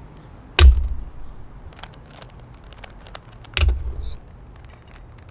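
Two sharp knocks, each with a low thud, about three seconds apart, the first about half a second in, with faint light clicking between them.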